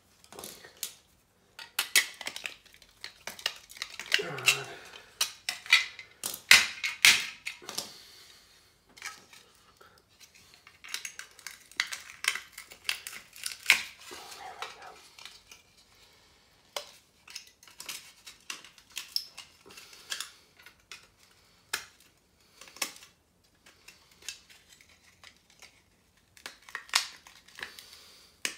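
Pieces of sterling silver hollowware scrap clinking and clattering as they are handled, a string of irregular sharp metallic clicks, busiest in the first half.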